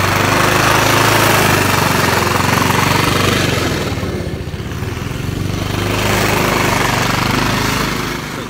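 Petrol push lawn mower running steadily while cutting grass. It grows fainter about four seconds in, then louder again.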